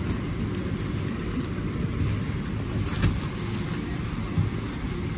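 Steady low rumble of an airliner cabin, with a couple of faint handling clicks.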